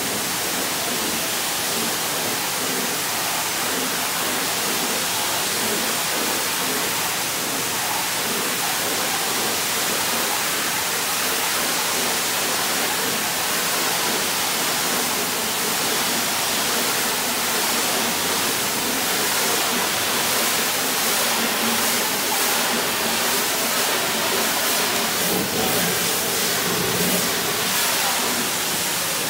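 High-pressure water jet from a spray gun on a long lance wand hitting the side panels of a semi-trailer: a steady hiss of spray, fluttering slightly in the second half. This is the cold-water rinse stage of a two-step touchless truck wash.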